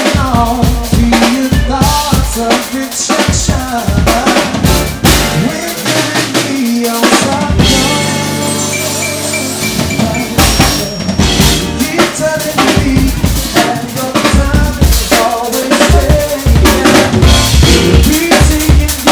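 Live band music: a male vocalist singing over a drum kit playing a steady beat on snare, bass drum and cymbals. A little under halfway through, the drums drop back for a couple of seconds under a held low chord, then the beat comes back in.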